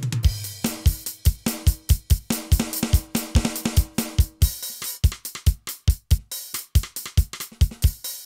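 Roland TD-8 electronic drum module's kit sounds played on pads: a steady groove of bass drum hits about three a second, with snare, hi-hat and cymbals over it.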